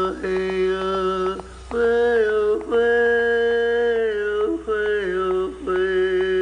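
Chanting voice holding a few long, steady notes, each a second or more, with short breaks between them and the pitch stepping up and back down.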